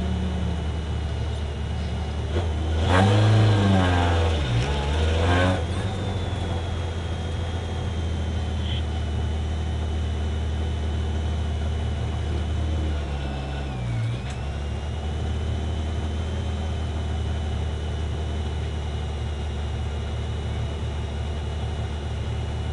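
Peugeot 205 rally car's engine idling, heard from inside the cabin, revved up and back down a couple of times about three to five seconds in and blipped once more around thirteen seconds in. A thin, steady high whine runs alongside.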